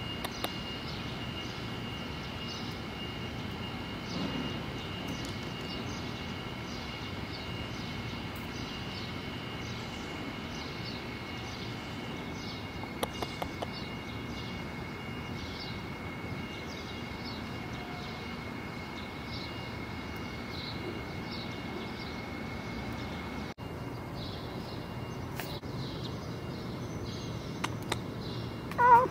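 Outdoor ambience: a steady low rumble and hiss with two faint steady high tones, and short high chirps repeating about once a second. Near the end comes a single short pitched call, the loudest sound.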